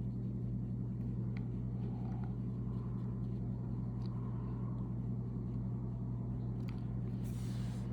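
Steady low mechanical hum running evenly, with a few faint ticks and a soft rustle near the end as cards are handled.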